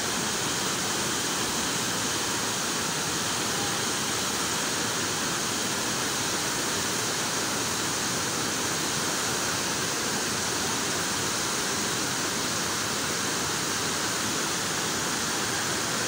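Waterfall cascading over rock steps into a pool: a steady, even rush of water.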